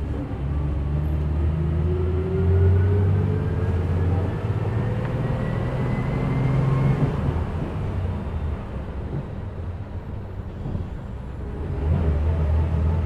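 Bus engine and drivetrain heard from inside the passenger cabin while riding: a deep engine hum with a whine that rises steadily in pitch as the bus gathers speed, easing off about seven seconds in and pulling strongly again near the end.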